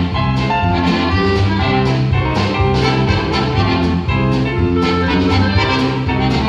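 An instrumental ensemble playing a lively instrumental introduction with a steady rhythmic pulse.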